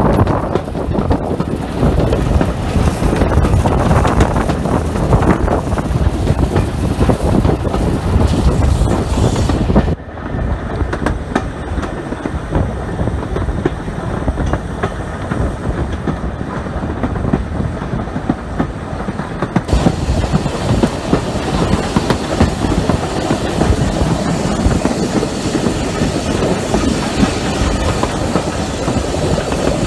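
Steam-hauled train behind No. 24 Calbourne, an LSWR O2 class tank engine, heard from the train itself: a loud, steady running noise of the train on the rails. The higher part of the sound drops away about ten seconds in and returns about ten seconds later.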